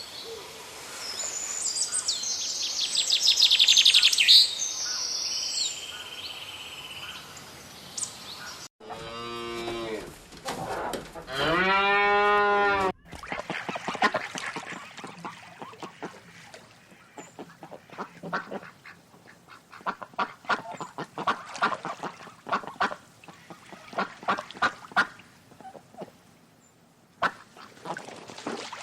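A run of animal calls: high, quick chirping for the first eight seconds or so, then long pitched calls rising and falling between about nine and thirteen seconds in, then many short calls in quick succession.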